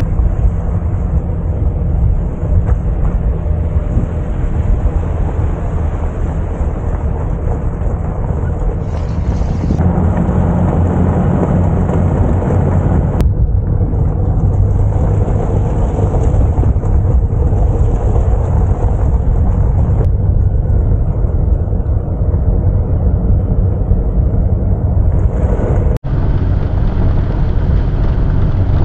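Daihatsu Atrai 660cc turbo kei van driving along a gravel road, heard from an outside-mounted camera: a steady low rumble of engine and tyres on gravel, with wind buffeting the microphone. The sound shifts abruptly about 13 seconds in and drops out for an instant a few seconds before the end.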